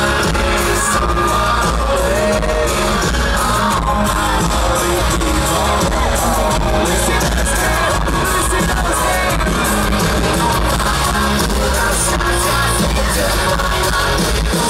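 Live country-rock band playing at full volume, with a lead singer over amplified electric guitars, bass and drums.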